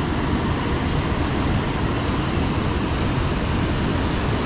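Steady, deep rush of water spilling through the gates of a small dam and running over the rocks of the stream below.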